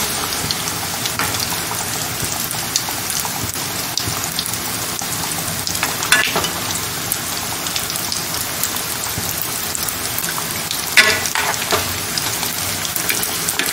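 Bread-crumb-coated veg burger patties (tikkis) deep-frying in hot oil in a kadhai: a steady sizzling hiss with scattered small pops, and louder crackles about six and eleven seconds in.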